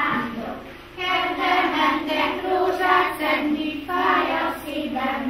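A group of young children singing a song together in short sung phrases, with a brief break in the singing just before a second in.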